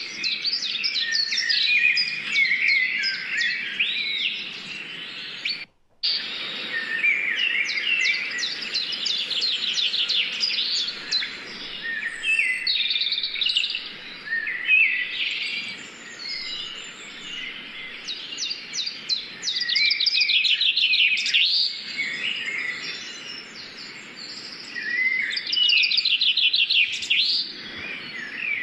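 Birds chirping and singing, many quick calls and rapid trills overlapping, with a brief gap about six seconds in.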